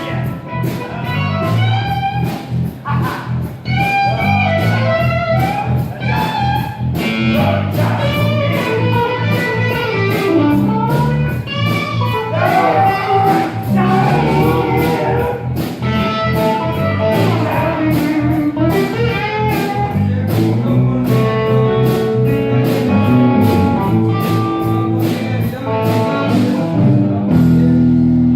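Music with guitar, a singing voice and a steady beat.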